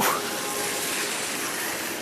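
Steady street traffic noise on a wet, snow-covered avenue: passing cars and their tyres on the wet road.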